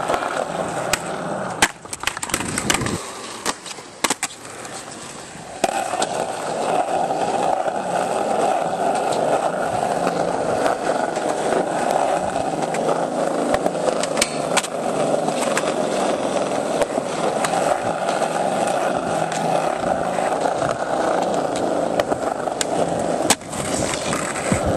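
Skateboard wheels rolling over concrete, a steady grinding rumble, taking over about six seconds in. Before that, several sharp clacks of the board against the ground.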